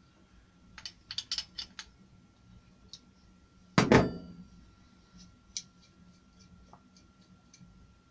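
Small metal clicks and taps from a spray gun being dismantled with a spanner. A loud metallic clank with a short ring comes just before four seconds in, as metal is set down on the bench, then light ticks of metal parts.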